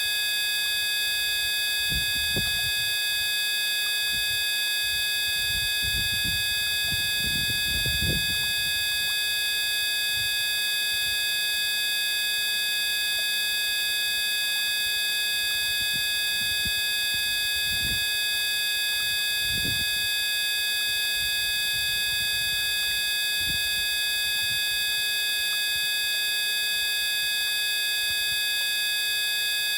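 A steady electronic-sounding drone of several fixed tones at once, unchanging throughout, with a few short low thumps at intervals.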